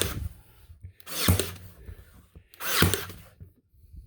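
Ryobi Airstrike cordless 18-gauge narrow crown stapler firing staples into underlayment, three shots about a second and a half apart.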